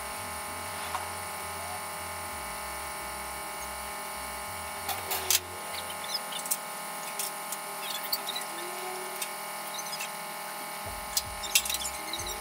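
A steady high whine runs throughout, with a few sharp metallic clicks and knocks from a dirt bike being handled and strapped down on a metal trailer, the loudest about five seconds in. Faint bird chirps are heard now and then.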